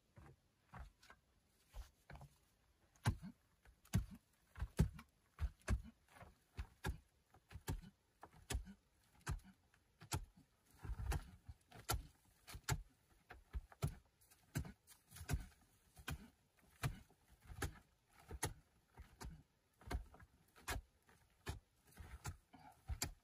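A shovel blade hacking into a packed clay and sand cave wall by hand, striking roughly twice a second, with loose soil scraping and falling after the blows.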